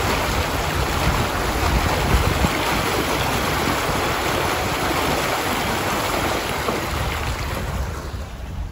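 Floodwater rushing and splashing along the side of a car as it drives through a deeply flooded road, a steady wash of water noise that eases a little near the end.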